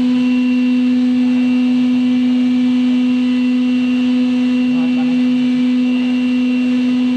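Lathe running steadily, giving a loud, even machine hum at one pitch.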